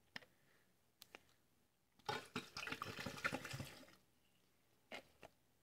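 Water poured into a glass jug of fresh parsley for about two seconds, starting about two seconds in, with a few light clicks before and after.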